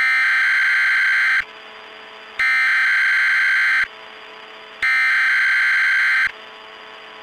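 Three long, loud bursts of Emergency Alert System header data tones, about a second apart. A quieter, steady low drone sounds in the gaps between them and carries on after the last burst.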